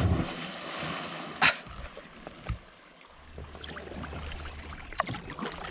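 A person plunging into the lake from a rock cliff: a loud splash, its spray hissing away over about a second. A second sharp hit comes about a second and a half in, then softer water sounds.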